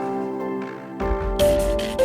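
Background music: soft held instrumental chords, with a new chord and a low beat coming in about a second in.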